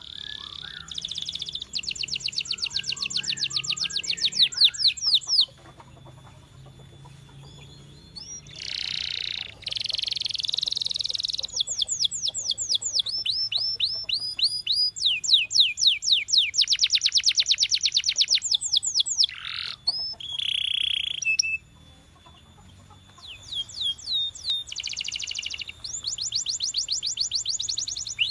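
Domestic canary singing: phrases of fast repeated notes and rolling trills, each run of notes a few seconds long, broken by two short pauses.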